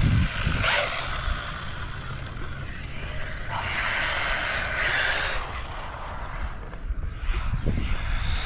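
MJX Hyper Go H14MK brushless RC truck driving on hard ground, its tyres scrubbing and motor whirring, with a couple of quick swells near the start and a longer swell in the middle as it passes.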